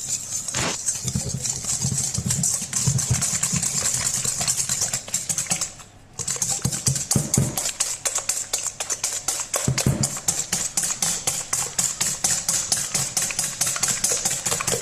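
Wire balloon whisk beating eggs and sugar in a stainless steel bowl, its wires clicking against the metal in a fast, steady rhythm of several strokes a second. There is a brief pause about six seconds in.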